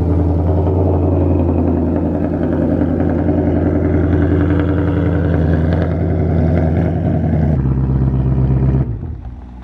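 Ford Mustang Shelby GT500's V8 idling steadily and loud. About seven and a half seconds in, the sound changes to a lower, plainer idle and then dies down near the end.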